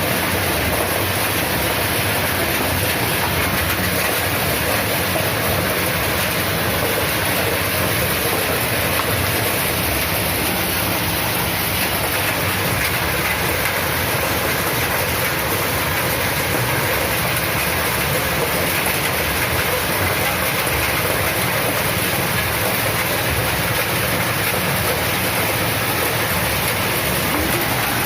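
Motorised corn sheller running steadily, a dense, even machine noise that holds at one level throughout.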